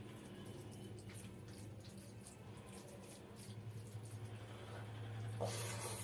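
Fingers squeezing and mixing rice with mustard-hilsa gravy on a plate, with soft wet squishes and small ticks. A louder wet sound comes near the end as a handful goes into the mouth. A steady low hum runs underneath.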